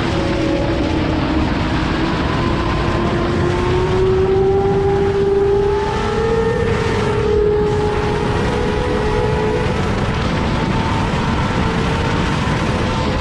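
An engine running steadily, its pitch drifting slowly up and down, over a loud even rushing noise.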